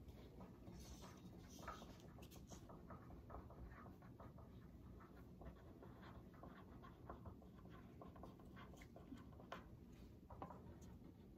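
Faint scratching of students writing on paper, with scattered small ticks and rustles over a low room hum.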